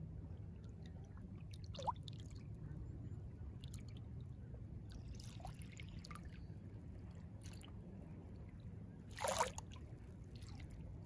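Small waves on a calm sea lapping and sloshing at the water's edge over a low, steady wash, with a few brief plops and splashes; the loudest splash comes about nine seconds in.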